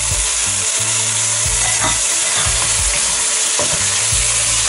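Chicken pieces with red curry paste sizzling in hot oil in a nonstick wok, stirred and scraped around with a wooden spatula; a steady, loud frying hiss.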